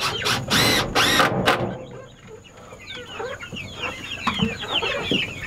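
A crowded flock of bantam chickens and guinea fowl calling. Two loud, harsh squawks come about a second in, then many short, quick chirps and clucks follow.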